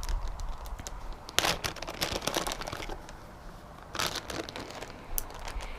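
Crinkling and rustling of plastic tackle packaging being handled, with two louder rustles about a second and a half and four seconds in.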